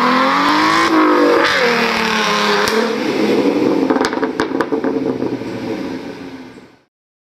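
Car engine revving hard, its pitch rising and falling, over tyre screech as in a burnout, with a few sharp pops about four seconds in; it fades out near the end.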